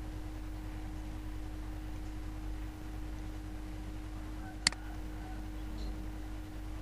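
A single sharp computer-mouse click about two-thirds of the way in, over a steady low hum and faint background noise from an open microphone.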